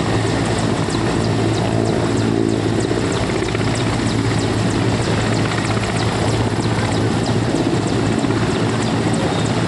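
Large helicopter flying low overhead, its rotor and engines running with a steady, loud beat.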